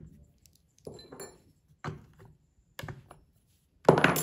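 A stopped STIHL MS 180 chainsaw being handled on a workbench: a few separate knocks and clunks of its plastic housing against the bench, about a second apart, with a louder clunk near the end.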